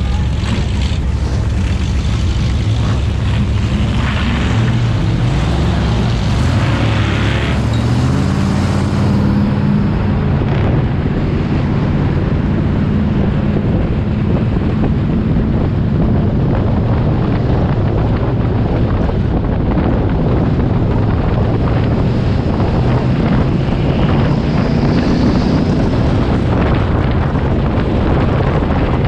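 Bomber-class stock car engines heard from an onboard camera at racing speed, the engine pitch shifting up and down, with wind rushing over the microphone.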